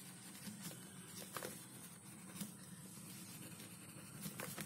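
Pen scratching and tapping faintly on paper as words are handwritten, in short strokes, over a low steady hum.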